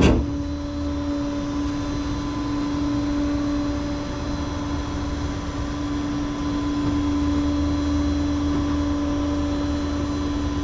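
Rollback tow truck's engine idling with a steady hum throughout; a short knock right at the start.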